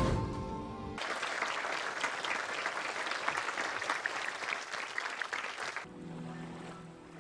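Audience applauding in a hall: dense clapping that starts about a second in and cuts off abruptly near six seconds. Music plays briefly before and after it.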